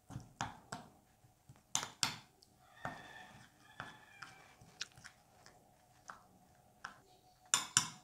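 Metal spoon stirring a thick wet marinade in a glass bowl, scraping and clinking against the glass in irregular taps, a few of them ringing briefly. The loudest clinks come about two seconds in and near the end.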